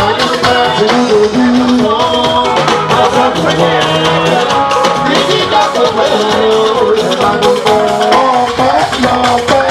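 Loud upbeat music with a quick shaker-and-drum beat and a melody, possibly with singing.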